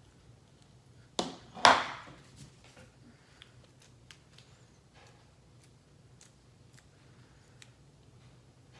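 Slime being handled on a tabletop: two sharp slaps about a second in, half a second apart, the second with a short squishy tail, then faint scattered clicks and crackles.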